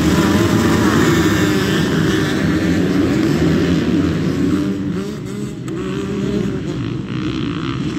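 A pack of motocross bikes launching off the start gate at full throttle, many engines revving at once. The sound eases about five seconds in as the bikes pull away.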